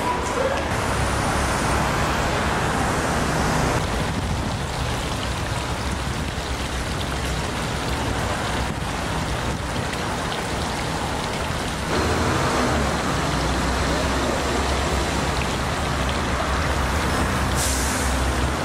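Fountain jets splashing steadily into a pool, with the hum of city traffic underneath.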